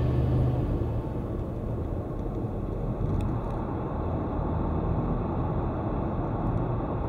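Steady road and engine rumble inside a car cruising at about 80 km/h, picked up by a dashcam microphone. The higher hiss thins out a little past halfway as the car enters a road tunnel.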